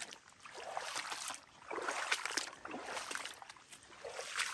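Footsteps wading and sloshing through shallow standing swamp water on a flooded trail, about one splashing step a second.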